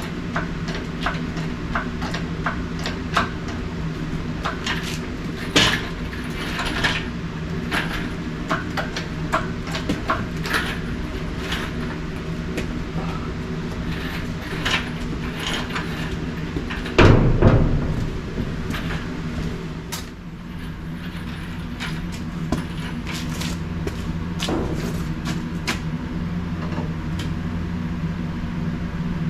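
Steady low mechanical hum with scattered clicks, clinks and knocks of handling metal parts and tools, and one loud thump a little past the middle.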